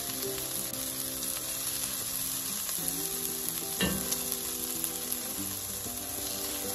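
Sliced red onions sizzling in butter and oil in an enamelled cast-iron pot while metal tongs lift them out, with one knock of the tongs about four seconds in.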